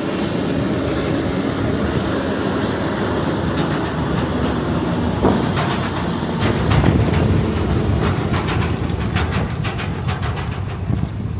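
Heavy farm machinery running close by, a dense mechanical rumble with rattling and clattering knocks that grow more frequent in the second half.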